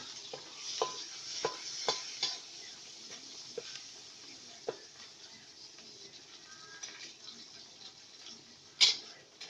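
Eggs and seafood frying in a wok over turned-down heat with a faint steady sizzle, while a spatula clinks against the pan several times in the first five seconds. One sharp knock comes near the end.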